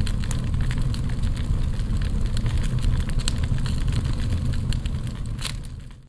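Fire sound effect for an animated title: a steady low rumble with many sharp crackles, fading out near the end.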